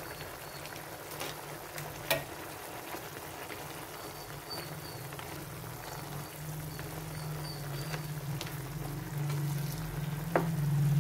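Chicken adobo and potatoes simmering in their soy-vinegar sauce in a frying pan, a steady bubbling sizzle, while a spatula stirs them with a few sharp clicks against the pan. A steady low hum sits underneath and grows louder near the end.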